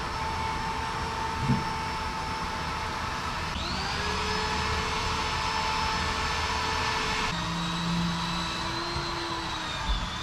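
Steady whir of a running machine, a noisy hum with a few held tones that jump to new pitches about three and a half and seven seconds in. A light knock comes about one and a half seconds in.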